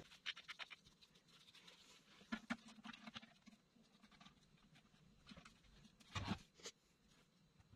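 Faint clicks and taps of metal parts being handled as a dial indicator on a magnetic base is set against a differential carrier, with one louder knock about six seconds in.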